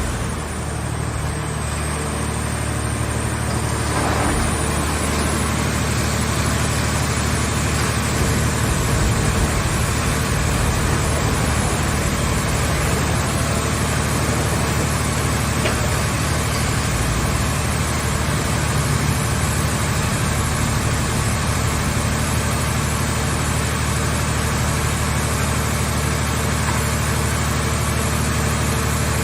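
Engine of a scrap-car baler and compacting machine running steadily with an even low hum, picking up slightly a few seconds in.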